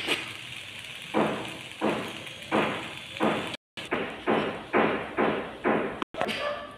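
Metal spoon scraping and scooping cooked vegetables against the pan and plate. It comes as a series of short scraping strokes, about two a second, quicker in the second half.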